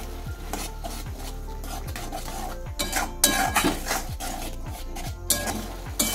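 Flat metal spatula stirring and scraping spiced masala around a metal kadai, with some sizzling from the pan. The scraping is loudest in the second half.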